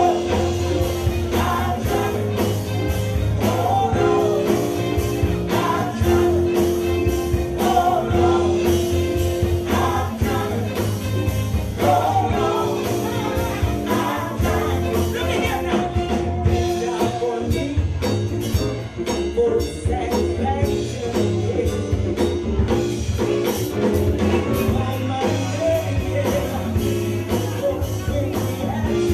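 A live band plays, with a woman singing lead into a microphone over drums and cymbals.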